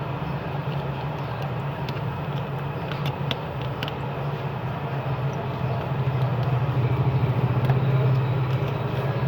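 Steady low hum over continuous background noise, with a few faint light clicks about three to four seconds in, as small screws are worked out of a phone's back housing with a screwdriver.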